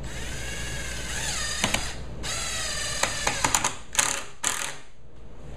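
Handheld power drill driving a 1.5-inch wood screw through OSB into the wood base below. The motor whines in two runs of a second or two, with sharp clicks as the screw bites, then gives two short bursts to seat the screw.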